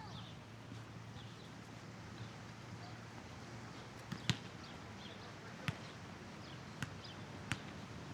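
Outdoor ambience with a steady low hum and small bird chirps. From about halfway through, a series of sharp knocks come roughly once a second, the second of them the loudest.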